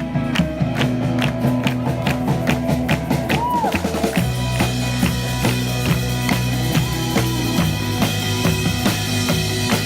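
Music with a steady drum-kit beat and held instrumental chords; the backing gets fuller about four seconds in.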